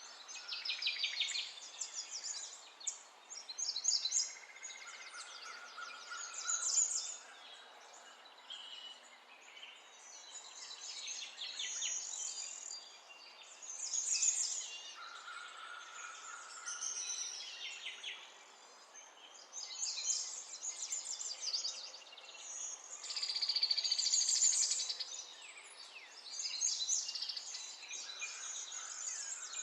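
Several birds chirping and singing, overlapping runs of quick high chirps and trills that come and go every few seconds, over a faint steady hiss.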